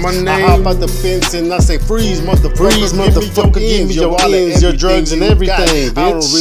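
Hip hop beat with deep kick drums that drop in pitch, and rapping over it.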